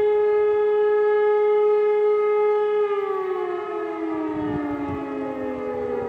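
Civil-defence siren sounding a test alarm: it holds a steady tone, then about three seconds in begins to wind down, its pitch falling smoothly as it gets quieter.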